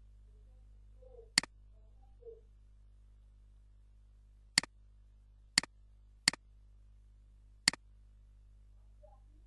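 Computer mouse button clicked five times, each a sharp click followed by its release, spread unevenly: once about a second in, then four more in quick succession past the middle. Under the clicks is a faint steady electrical hum.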